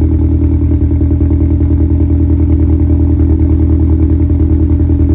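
Mazdaspeed 3's turbocharged 2.3-litre four-cylinder running rough at idle, its loudness pulsing steadily. It is misfiring on cylinder 3.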